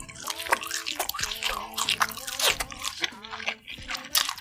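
Crisp food bitten and chewed close to the microphone: a quick run of loud, sharp crunches.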